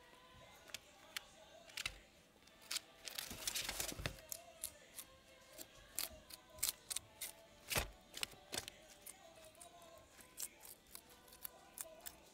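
Guinea pig chewing crunchy fresh vegetables and greens: a string of irregular crisp crunches and snips, with a denser rustling, crunching stretch about three seconds in.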